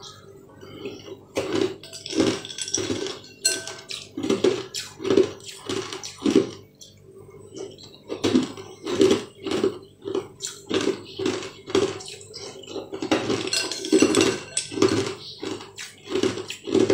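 Metal spoon clinking and scraping in a glass bowl while scooping up liquid, with wet slurping and chewing close to the microphone, in short irregular bursts.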